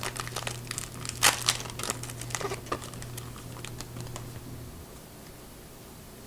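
A trading-card pack being opened by hand: the wrapper crinkling and tearing in quick, sharp crackles that thin out after about three seconds and die away near the end.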